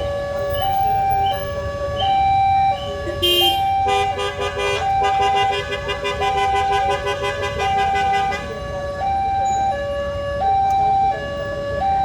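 Railway level-crossing warning siren sounding two alternating tones, high and low, switching about every two-thirds of a second. About three seconds in, a second sound with many tones at once sounds over it for about five seconds, then stops.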